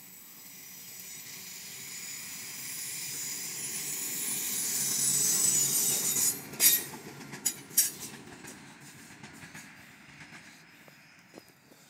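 Pacific National 81 class diesel locomotive hauling a fuel train of tank wagons past, growing louder as it approaches with high steady wheel squeal over the rumble. A few sharp knocks sound just after halfway as the locomotive goes by, then the noise fades as the tank wagons roll on.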